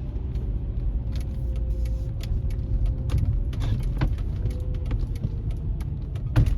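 Mercedes CLK55 AMG on the move: a steady low engine and road rumble with irregular sharp ticks over it, and one louder click near the end. This is the ticking that the car makes only under throttle.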